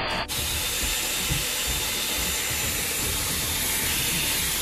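Dyson Airwrap hair styler blowing air: a steady rushing hiss with a faint high motor whine. The sound changes abruptly a fraction of a second in.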